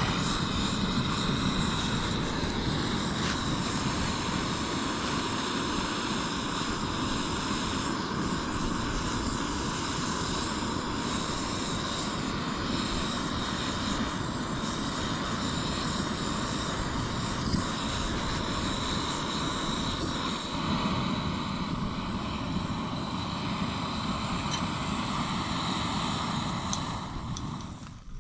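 Steady whine of a propeller-driven flying craft: several steady tones over a rushing noise, fading out near the end.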